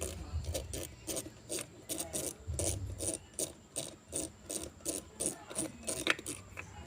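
Something being scraped or rubbed back and forth by hand in quick, even strokes, about three a second.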